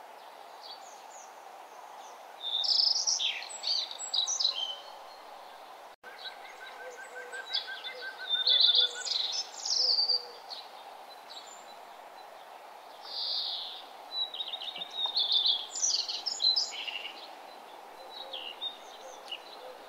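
Birds singing in three bouts of quick, high chirping phrases over a steady background hiss, with a momentary dropout about six seconds in.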